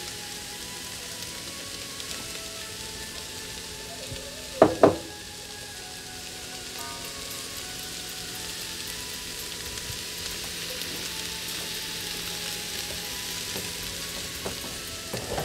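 Diced pineapple, mango and peppers with green marinade sizzling steadily in a frying pan, with two sharp knocks a little under five seconds in.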